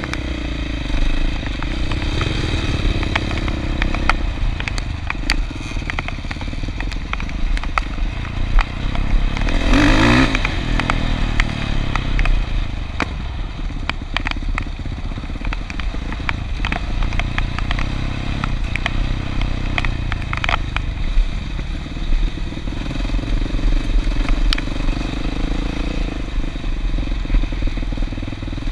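Off-road vehicle engines running steadily, with scattered clicks and clatter. About ten seconds in, an engine gets louder, its pitch rising and then falling.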